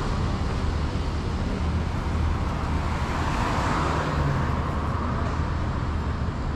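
City road traffic: a steady rumble of engines and tyres that swells briefly near the middle.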